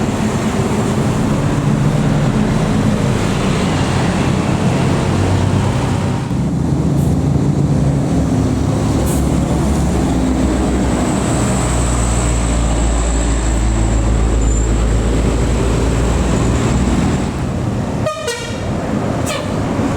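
Tour buses going by on an uphill road, diesel engines running under load with a deep rumble, and telolet multi-tone air horns sounding in held chords. A thin high whine runs for several seconds in the second half.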